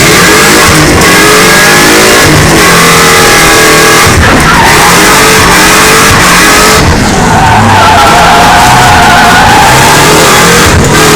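V8 engines of BMW M3 drift cars revving hard and rising and falling in pitch through a drift run, with tyres squealing. The sound is loud enough to hold at full recording level throughout.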